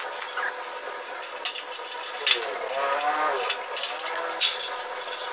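Aviation snips cutting notches in a light-gauge steel channel, giving a few sharp metal clicks, with a cluster near the end. About two seconds in, a drawn-out wavering pitched sound rises and falls for about a second.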